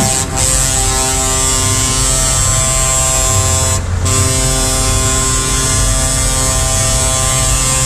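Heavy truck engines idling: a loud, steady droning hum of several held tones over a low rumble, which briefly drops out about four seconds in.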